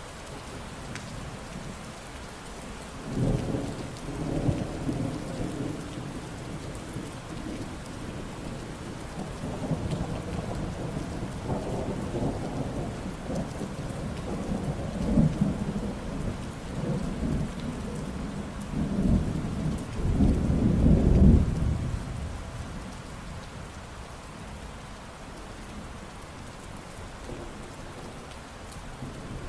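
Steady rain falling, with thunder rolling through it. A rumble comes about three seconds in, and longer rumbles build through the middle, the loudest about two-thirds of the way in, before the storm settles back to rain alone.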